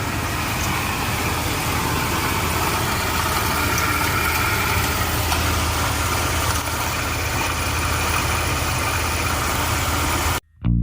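1997 Chevy C2500's 5.0-litre V8 idling steadily, with faint high steady tones over it from the loose idler pulley that the owner says is screeching. It cuts off suddenly near the end.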